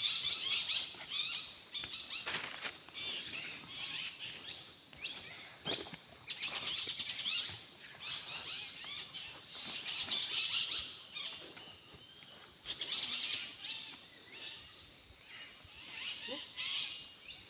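Many small birds chirping at once, a dense high twittering that swells and fades every couple of seconds, with a few short clicks among it.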